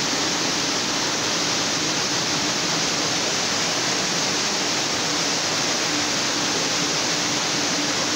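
Steady rushing noise of running water filling an indoor pool hall, even and unbroken, with a faint low hum under it.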